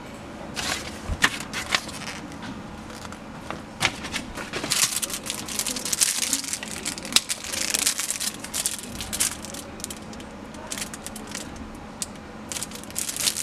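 Paper and a clear plastic bag crinkling and rustling in the hand in irregular crackly bursts, with scattered clicks: a paper instruction sheet and a remote control still in its plastic wrapper being handled.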